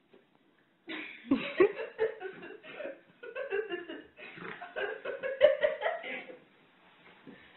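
Laughter in irregular fits, starting about a second in and dying away near the end.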